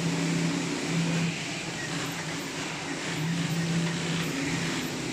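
Factory-floor din: a steady hiss with a low machine hum that starts and stops every second or so, typical of industrial sewing machines running in short stitching bursts.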